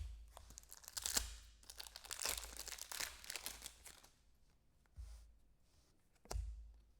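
Foil pack wrapper and trading cards being handled: a few seconds of crinkling and scraping, then two short rustles near the end.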